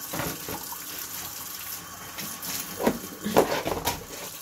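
Kitchen tap running into a sink in a steady hiss, with a few sharp knocks about three seconds in.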